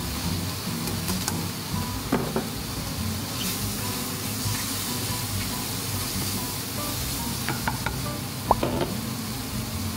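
Sliced mushrooms and minced garlic sizzling in a hot frying pan while being stirred with a slotted spatula. A few sharp clicks of the utensils against the pan come through, the loudest about two seconds in and again near the end.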